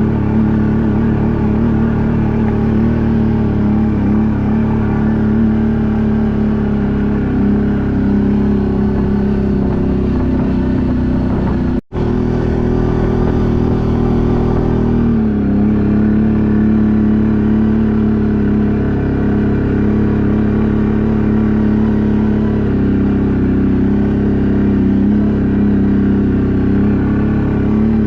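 ATV engine running steadily under way, a constant drone with small shifts in pitch. The sound cuts out abruptly for an instant about twelve seconds in.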